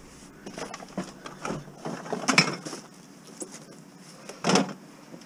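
Junk being loaded into a car's back seat among full garbage bags and bottles: a run of irregular rustles and knocks, loudest about two and a half seconds in, with another sharp knock near the end.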